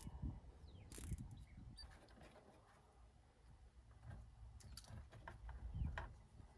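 Faint, scattered light clicks and rustles of hands handling small parts, with a cluster of clicks near the end.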